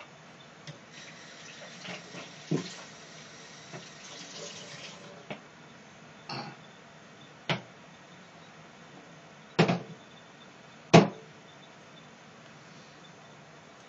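Kitchen tap running into a plastic mixing bowl for a few seconds as it is rinsed. Then come several sharp knocks as the bowl is handled, the loudest two about a second and a half apart in the second half.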